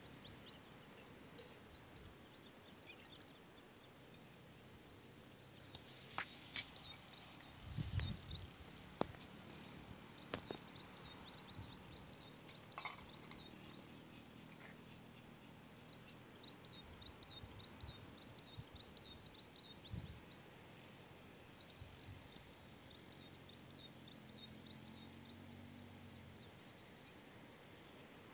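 Faint outdoor ambience with a scatter of short, high chirps throughout and a few soft knocks here and there.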